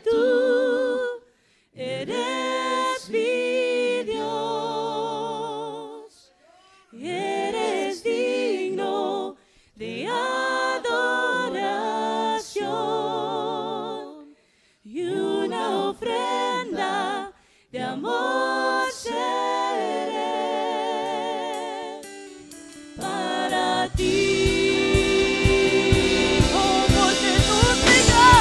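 Unaccompanied voices singing a slow worship song in phrases broken by short pauses, with wavering held notes. About 24 seconds in, a band with drums comes in under the singing.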